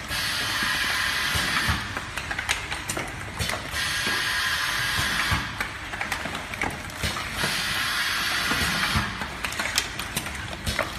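Automatic carton packaging and sealing machine running: stretches of steady hissing alternate with bursts of rapid clicking and clacking from its mechanism, repeating about every three and a half seconds.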